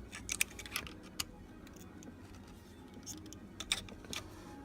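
Small sharp clicks and taps of a small screwdriver and pick working at the plastic retaining tabs of a VW Jetta's ignition switch: a few in the first second, a quiet stretch, then more near the end.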